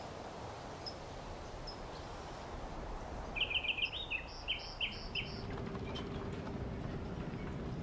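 Forest ambience: a steady background hiss with a faint high chirp repeating about once a second, and a brief bird song of quick repeated notes about three and a half seconds in. A low steady hum and a deeper rumble come in after about five seconds.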